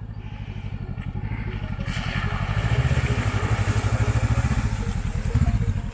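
Honda CB500X's parallel-twin engine running with an even pulse, growing louder as the motorcycle approaches. From about two seconds in, the tyres hiss and splash through a muddy puddle.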